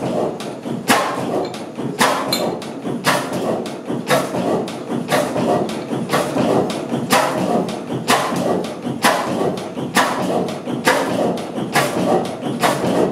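1913 Benz & Cie single-cylinder air-blast-injection stationary diesel engine running slowly, a heavy thump about once a second over a steady mechanical clatter.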